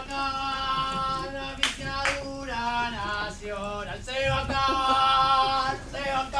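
A solo voice singing a slow melody in long held notes, with two short knocks about two seconds in.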